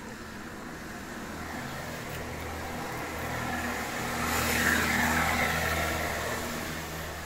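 A road vehicle passing by, its engine and tyre noise swelling to loudest about four and a half seconds in and then fading away.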